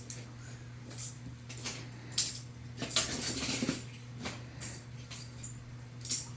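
Irregular clicks and clatter of hard toy building pieces being handled and set down during play, over a steady low hum.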